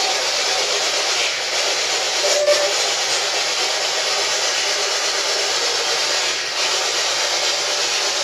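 Steady loud hiss of static-like noise, with a few brief dips in level.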